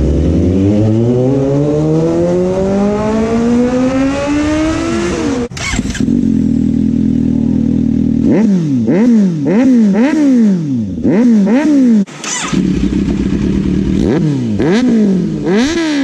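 Inline-four superbike engine accelerating hard, its pitch climbing steadily for about five seconds before cutting off. It then idles and is revved in a series of quick throttle blips that rise and fall sharply, idles again, and is blipped once more near the end.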